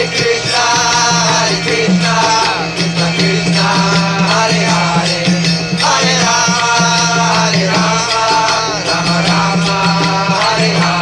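Kirtan music: voices singing a devotional chant in phrases about a second long, over percussion and a steady low drone.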